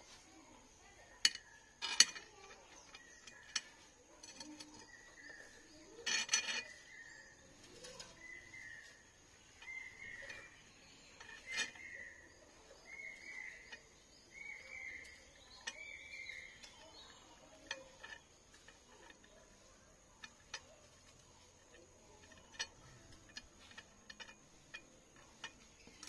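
Light clicks and taps of steel tweezers, soldering iron and solder wire against a workbench during hand soldering of header pins onto a small circuit board, a few of them sharper. Through the middle, a run of short high chirps comes about once a second.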